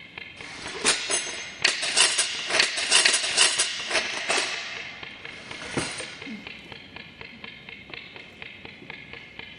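Background music with a dense clatter of sharp clicks and taps, loudest for about four seconds near the start, then thinning to a few scattered taps over the quieter music.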